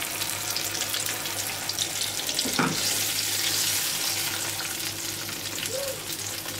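Pureed tomatoes sizzling in hot oil and fried pepper paste in a frying pan, stirred and spread with a silicone spatula, with one brief knock of the spatula about two and a half seconds in. A steady low hum runs underneath.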